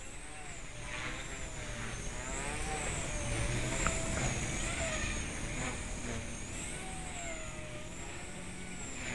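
Blade 130X micro RC helicopter in flight, its AEO Hummingbird 8000 kV brushless main motor and rotor giving a high whine with a lower tone beneath, both wavering up and down in pitch as it manoeuvres.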